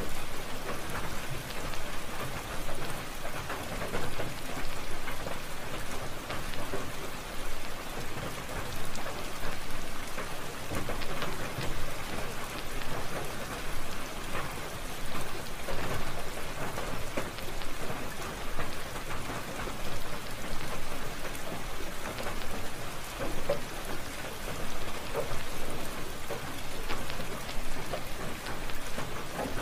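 Steady rain falling, a continuous patter of drops with a fluttering, uneven loudness.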